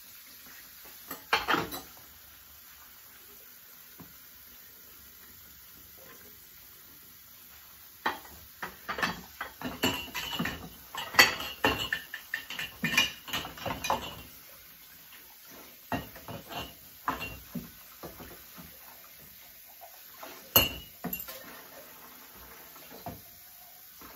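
Dishes being washed by hand at a stainless-steel sink: a ceramic bowl and other dishes and cutlery clinking and knocking against each other and the sink. The clatter comes in scattered bursts, busiest through the middle, with a few ringing clinks.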